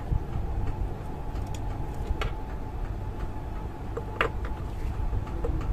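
A few light clicks and taps from handling a small circuit board and its parts, scattered a second or two apart, over a steady low background hum.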